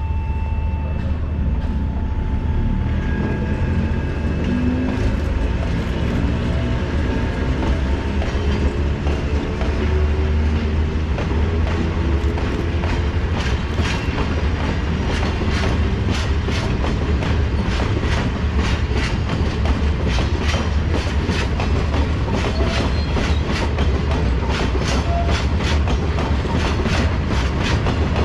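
Sangi Railway freight train departing: an ED45 electric locomotive hauling cement tank wagons, with a steady low rumble and a rising whine as it gathers speed. This is followed by rhythmic clickety-clack of the wagons' wheels over the rail joints, the clicks coming faster in the second half.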